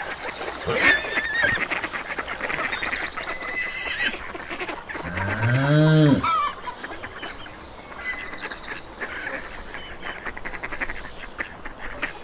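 Ducks quacking and geese honking, mixed with short squeaks and chirps. About halfway through comes one low, drawn-out animal call, rising then falling in pitch, which is the loudest sound.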